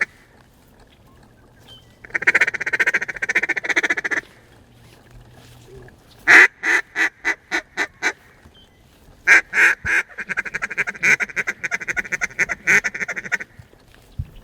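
Hen-mallard quacking blown on a duck call. A fast chatter comes about two seconds in. A run of about nine separate quacks follows about six seconds in. Then a few loud quacks run into another fast chatter that lasts about four seconds.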